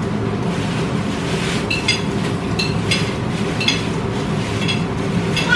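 Plastic bag rustling as it is handled, with several light clinks of cutlery on plates in the second half.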